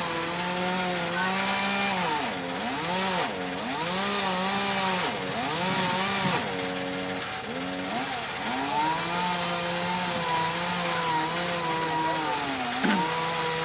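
Chainsaw running hard while cutting into a tree trunk, its engine pitch dropping and recovering several times as the chain bogs in the wood.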